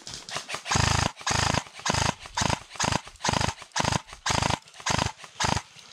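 An animal calling loudly over and over, in a rhythmic run of cries about two a second that starts just under a second in.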